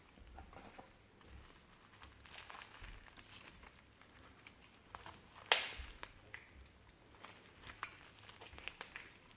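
Slime being squished and mixed by hand: a run of small sticky crackles and clicks, with one sharp, louder pop about halfway through.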